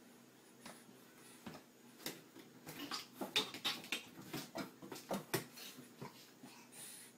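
A cat forcing its body through a small pet door: a quick run of sharp knocks and scuffles from the flap and the cat's body jostling against the door, starting about two seconds in and easing off near the end.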